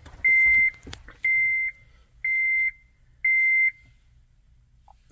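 Honda Element's dashboard warning chime: four evenly spaced high beeps, each about half a second long and about a second apart, stopping about four seconds in.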